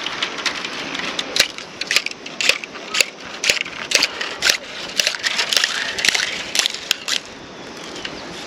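Split ringal bamboo strips crackling and clicking as they are bent and woven into a basket: sharp, irregular clicks about twice a second over a steady rustle.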